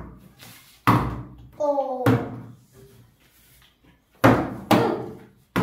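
Partly filled plastic bottle flipped and landing hard on a tabletop: a run of about five sharp thuds, two of them close together near the end.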